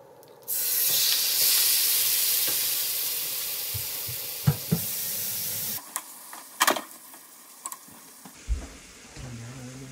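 Raw diced chicken hitting hot oil in a frying pan: a loud sizzle starts suddenly about half a second in and slowly dies down, dropping to a quieter sizzle a little after halfway. A few sharp knocks come from the wooden spoon against the pan as the chicken is stirred.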